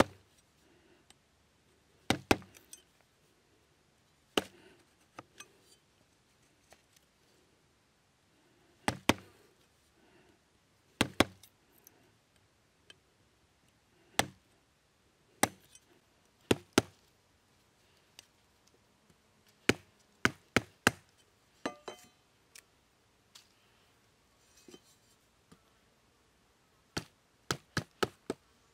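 Machete chopping and splitting bamboo sticks against a wooden stump: sharp, single chops at irregular intervals, mostly a second or more apart, with a quicker run of strikes near the end.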